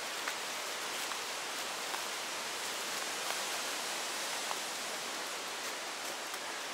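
Steady, even hiss of outdoor ambience, with a few faint ticks.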